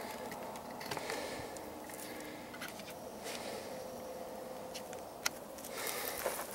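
Faint rustling and handling noise from the camera being carried and moved, with a few light clicks and one sharp click a little past five seconds in.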